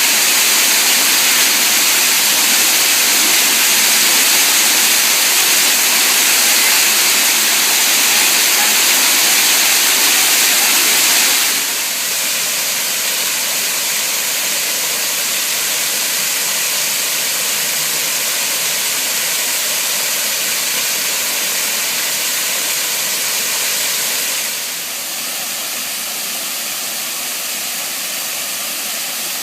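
Garden waterfall rushing as a steady hiss of falling water. It steps down in loudness twice, about a third of the way in and again near the end.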